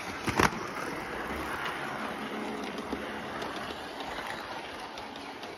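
Model diesel train running past on the track: a steady whirring rattle of the motor and wheels on the rails, with a sharp click about half a second in, easing slightly toward the end.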